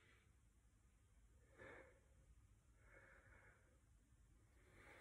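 Near silence with a few faint breaths from a man holding a stretch: a short one about a second and a half in, and a longer, softer one around three seconds.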